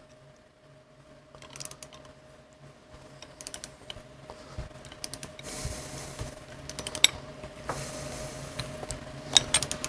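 Wrench turning the nut on a threaded-rod bearing press that draws a sealed wheel bearing into a Harley-Davidson wheel hub. It makes short clusters of light metallic clicks every second or two, over a faint steady hum.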